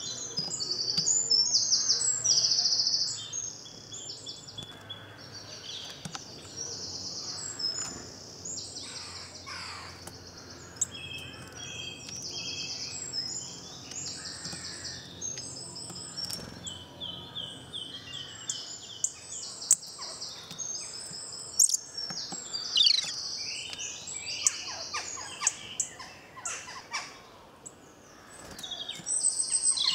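Spring woodland chorus of songbirds singing, many birds overlapping in high, fast trilled and whistled phrases that repeat without a break. Several sharp ticks stand out in the second half.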